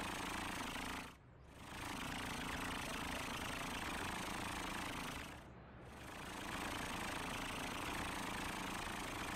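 Cartoon fire truck's engine sound effect running steadily as it drives, with a rough, rattly texture. It drops out briefly twice, about a second in and again past the middle.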